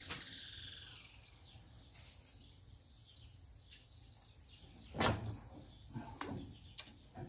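Quiet outdoor background with a steady high insect buzz. A short falling chirp comes at the start, a single sharp knock about five seconds in, then a few lighter knocks.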